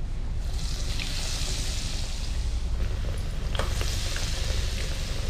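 Batter-dipped bread triangles sizzling as they fry in hot ghee in a nonstick pan. The sizzle swells about half a second in, with a few light clicks of metal tongs against the pan, over a low steady hum.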